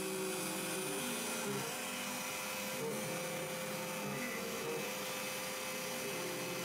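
Small CNC mill running while an end mill cuts aluminium: a steady spindle whine and hiss, with lower motor tones that step up and down in pitch every half second or so.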